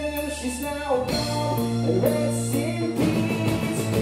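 Live band playing a rock song: strummed acoustic guitar with violin, electric bass and drums.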